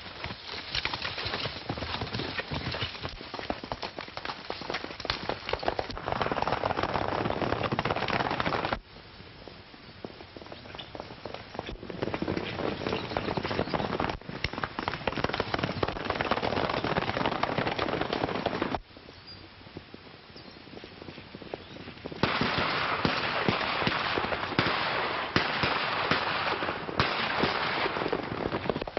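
Dense, continuous popping and crackling: many sharp cracks in quick succession. The level drops abruptly about nine seconds in and again at about nineteen, then picks up again.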